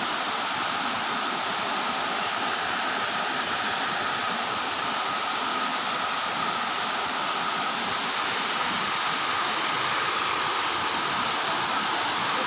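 Tiered waterfall cascading over rock into a pool: a steady rush of falling water.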